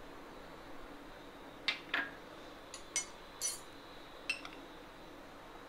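Metal spoon clinking lightly against glassware: about five short, sharp clinks spread across a few seconds.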